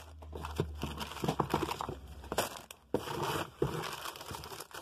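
Clear plastic product bags crinkling and rustling as they are handled, in irregular crackly bursts.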